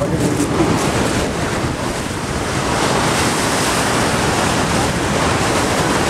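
Steady roar of Niagara's American Falls and its spray heard from close below on the water, with wind buffeting the microphone.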